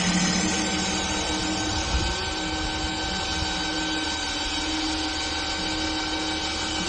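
A multihead CNC wood lathe running: a steady machine hum with several high whining tones, and a short knock about two seconds in.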